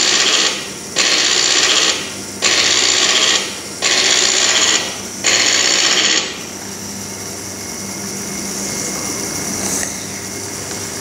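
Small Lego WeDo electric motor turning the crane through its plastic gears, in five bursts of about a second each with short pauses, then running on more quietly and steadily.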